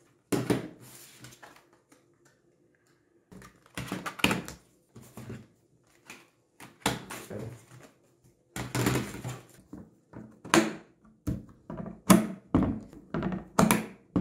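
Handling noises of DDR4 RAM sticks being installed in motherboard memory slots: a series of sharp clicks and knocks as the modules are pressed in and their latches snap, with scraping and rustling in between.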